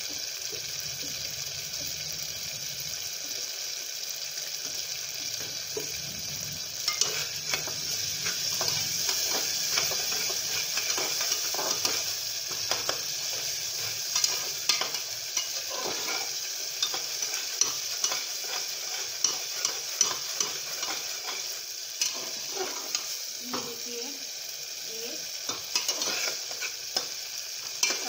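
Masala paste of garlic, ginger, poppy seed and chilli frying in hot oil with browned onions, a steady sizzle. From about seven seconds in, a spoon stirs it, clicking and scraping against the pan many times.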